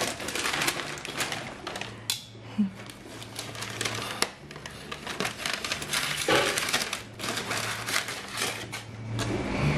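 Paper bag crinkling and rustling as metal tongs dig into it for churros, with many short crackly clicks.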